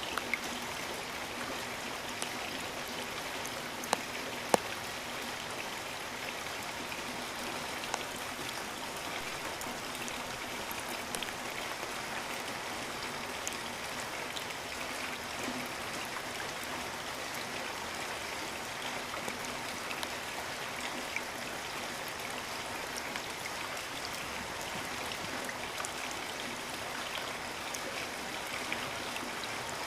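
Steady rainfall, an even hiss of rain with scattered sharp drop hits, a couple of louder ones about four seconds in.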